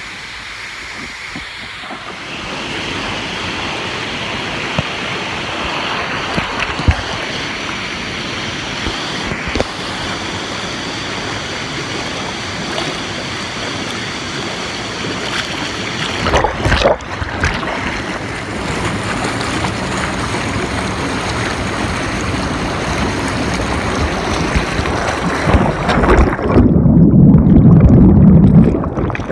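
Hot tub jets and air bubbles churning the water in a steady rush. Near the end the sound turns muffled and deep.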